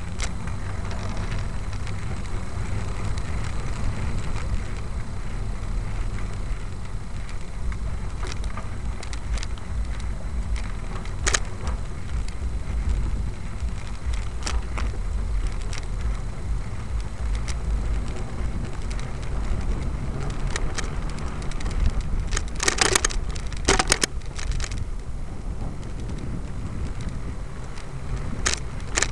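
A vehicle moving along a trail: a steady low rumble, with scattered sharp knocks and rattles and a burst of them about three-quarters of the way through.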